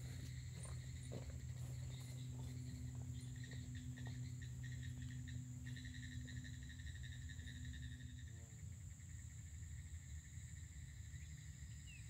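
Insects, crickets or katydids, trilling steadily in several high, partly pulsing tones, with a low steady hum underneath that stops about two-thirds of the way through.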